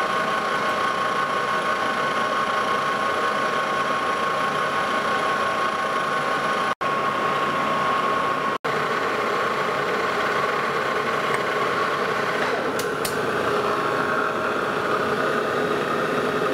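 Lodge & Shipley engine lathe running steadily with a steady whine while the tool takes a facing cut across a metal table saw arbor flange. The sound cuts out very briefly twice near the middle, and its tone shifts lower for the last few seconds.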